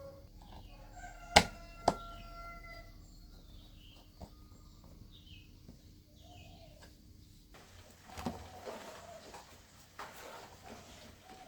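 Two sharp knocks half a second apart, about a second and a half in, over background bird calls and chirps. A faint steady hum cuts off about seven and a half seconds in.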